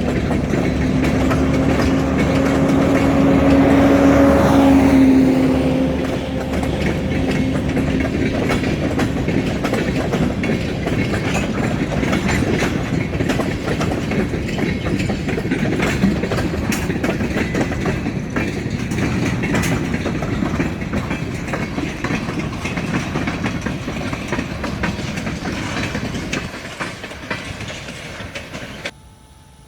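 A freight train passing: a locomotive's steady pitched tone fades out about five seconds in. Freight cars follow, rattling and clicking over the rail joints, and the sound cuts off abruptly near the end.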